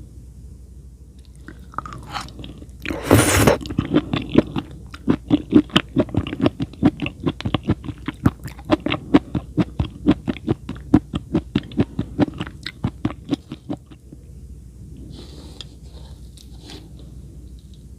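Close-miked chewing: a bite about three seconds in, then rhythmic crunchy chewing at about three chews a second for some ten seconds, stopping near fourteen seconds.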